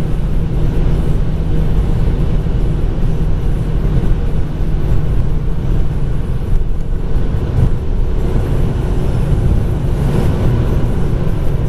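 In-cabin sound of a 2009 Ford Focus MK2 1.6 petrol's inline four-cylinder engine pulling steadily at about 4,000–4,500 rpm in fifth gear at motorway speed, a continuous engine drone mixed with road and wind noise.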